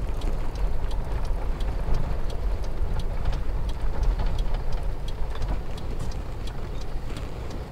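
Steady low rumble of outdoor wind and handling noise on a handheld camera's microphone while walking, with many scattered light clicks and taps.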